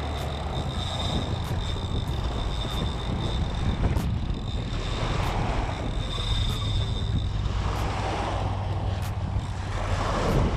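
Wind buffeting the microphone and small waves washing against the shore every few seconds, with a faint high whine that comes and goes.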